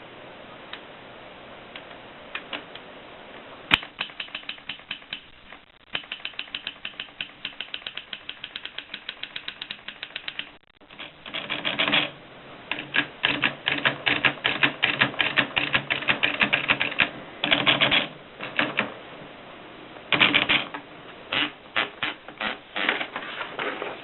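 1950s Express typewriter being typed on: a few scattered key strikes, then rapid, even runs of keystrokes at several a second, broken by short pauses and a few longer rattling stretches.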